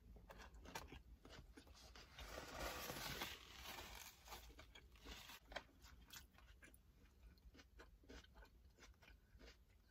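Quiet close-up chewing of a crunchy steak fajita: soft crunches and small wet mouth clicks, with a louder rustling stretch of a napkin wiping the mouth about two seconds in.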